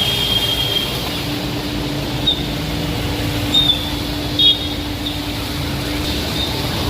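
Steady vehicle rumble with a held low hum, broken by a few short high chirps or squeaks.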